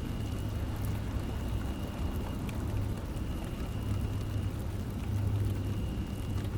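Light rain falling steadily with scattered drop ticks over a low rumble. A faint, high, steady alarm-siren tone sounds in stretches of about a second and a half, broken by short gaps.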